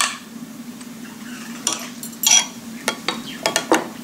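Sharp clinks against a glass water jug as ingredients are handled into it, a few starting about a second and a half in and coming closer together near the end, over a low steady hum.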